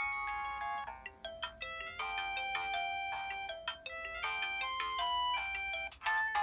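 Built-in polyphonic ringtone of a Samsung Anycall SCH-W200 mobile phone playing a synthesised melody. One tune fades out about a second in and a new one with percussive hits starts, with another change near the end.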